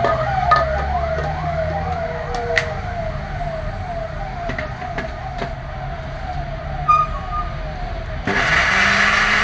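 A siren-like wail swoops up and down about three times a second and fades away, with a few clicks of a steel jar and lid being handled. About eight seconds in, an electric mixer grinder switches on and runs loudly, blending papaya in its steel jar.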